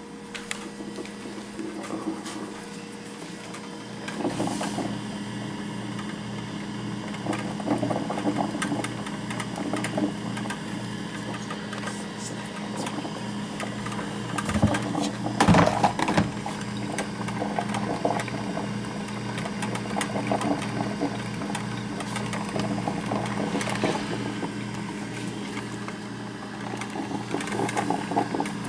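Black & Decker drip coffee maker brewing: a steady, rhythmically pulsing hum with scattered crackling and sputtering of water, and one louder sputter about halfway through.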